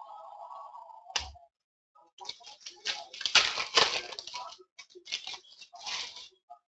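A trading card pack's wrapper is torn open and crinkled: a rapid run of crackles and rips lasting about four seconds, after a single sharp click.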